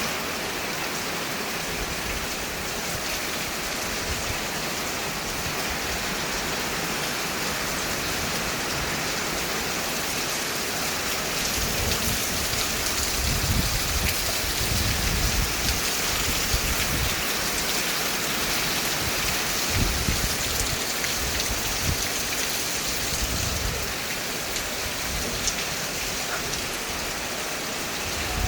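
Heavy rain pouring down, a steady, really loud hiss. Low rumbles come and go through the middle stretch.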